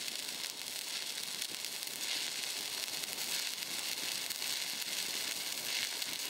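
Stick-welding arc from a 6010 cellulose-coated electrode, a steady crackling hiss as the rod is run with a whip-and-pause motion.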